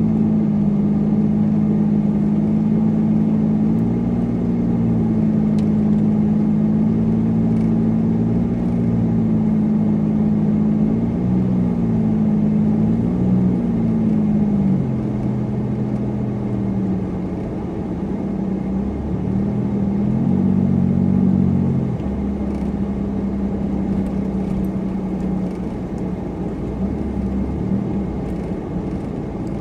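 Supercharged car driving, its engine humming steadily over road noise. The engine note dips and climbs twice, about a third of the way in and again around two-thirds in, then settles lower and a little quieter.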